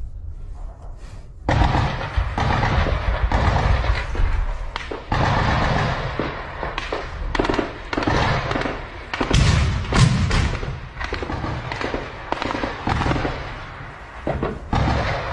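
Gunfire in a firefight: a dense, irregular crackle of shots and bursts that starts suddenly about a second and a half in, with the loudest shots around nine to ten seconds in.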